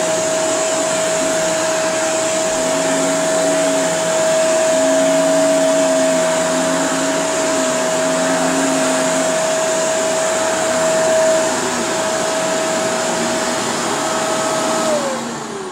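Shark Powered Lift-Away upright vacuum cleaner running with a steady high whine over a motor-and-airflow rush. Near the end it is switched off and the whine falls away as the motor spins down.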